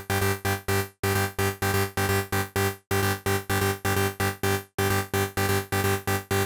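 Native Instruments Massive software synthesizer playing a big-room breakdown chord pattern. Short stabs come about four a second and each fades quickly. The pattern breaks off briefly and starts over about every two seconds.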